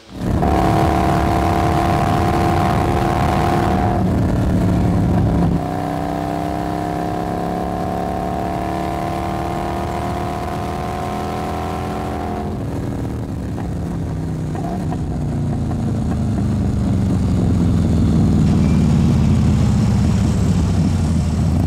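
Motorcycle engine running at a steady cruising speed, broken by a few abrupt cuts. Over the last several seconds its pitch falls steadily as the bike slows to a stop.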